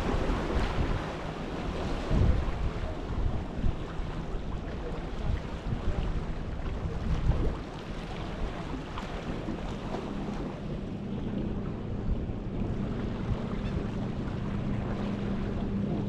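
Sea waves washing with gusts of wind buffeting the microphone, gustiest in the first half. About ten seconds in, a steady low engine hum joins the wash.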